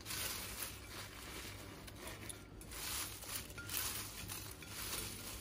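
Crisp fried bitter gourd chips crackling and rustling as hands toss and turn them on a paper-towel-lined plate: an uneven run of faint crunchy rustles.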